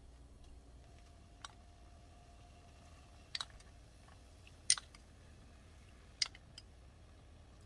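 A handful of short, sharp clicks of small glass and ceramic dishes knocking against a cooking pot as ingredients are tipped in, the loudest about halfway through, over a faint steady hum.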